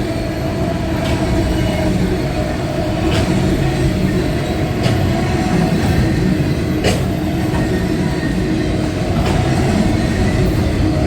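Freight train cars rolling past at about 25 to 30 mph: a steady heavy rumble of wheels on rail, with a sharp click from the wheels every two seconds or so.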